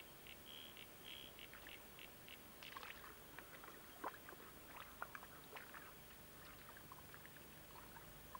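Small faint splashes and trickles of river water as hands wash a freshly caught fish in the shallows. A quick run of short high chirps runs through the first two seconds.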